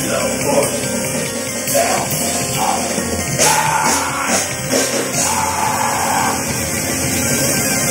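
A live band playing loud, heavy rock music, with singing over it.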